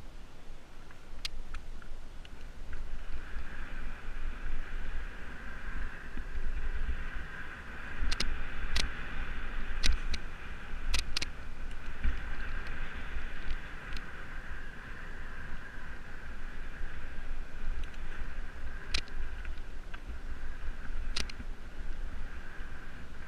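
Mountain bike ridden fast on a dirt forest trail: wind rumble on the bike-mounted camera's microphone, a steady buzzing whir from the moving bike, and sharp clicks and knocks as it goes over bumps.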